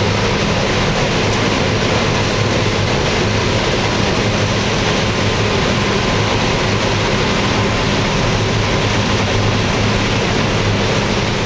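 Combine harvester running steadily while harvesting corn: a constant low machine hum under a loud rushing noise.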